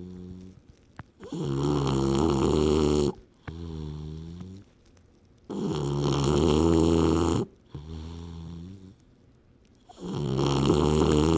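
Snoring in slow, regular cycles: three loud snores about four seconds apart, each followed by a softer breath with a wavering pitched tone, and short pauses in between.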